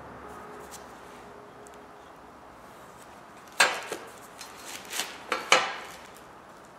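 A metal carpenter's square knocking and clattering against a wooden stool seat as it is turned and laid back down. It comes as a run of sharp knocks with short ringing tails over about two seconds, starting about halfway through.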